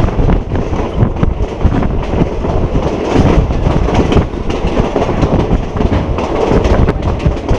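A State Railway of Thailand passenger train running along the line, heard from an open carriage window: a steady rumble of wheels on the rails with irregular clattering and knocks.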